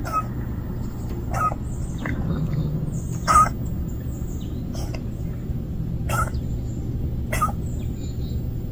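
A bird calling in six short, evenly spaced calls, about one every second and a quarter, the loudest about three and a half seconds in, over a steady low background rumble.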